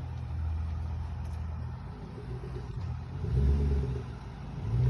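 Car engine running with a steady low rumble that swells louder for a moment about three and a half seconds in.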